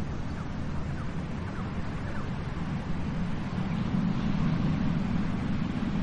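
Sea surf washing steadily with a deep low rumble, swelling slightly about four seconds in. A few faint short chirps sound in the first couple of seconds.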